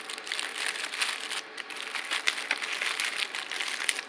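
Firecracker packs being handled, their wrapping crinkling and rustling in a dense run of small crackles and clicks.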